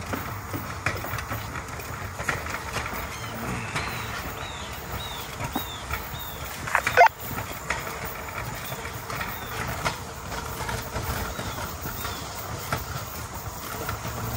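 Rail bike's steel wheels rolling along old track, with irregular clicks and knocks over the rail joints and one loud clank about seven seconds in.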